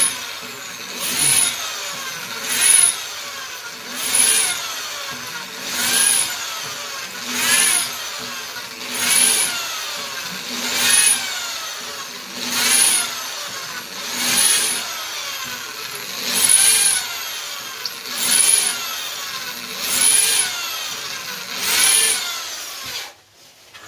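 Electric drill boring holes in ceramic wall tile one after another. The motor runs steadily, and about every one and a half to two seconds it surges loud as the bit is pressed in and punches through, its pitch dipping and recovering. This happens about a dozen times before the drill stops near the end.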